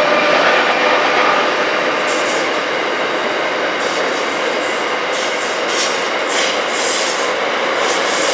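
Freight train's flat wagons, loaded with steel rails, rolling past close by: a steady loud rumble of wheels on track. A brief wheel squeal fades within the first second, and sharper clicks and rattles come through in the second half.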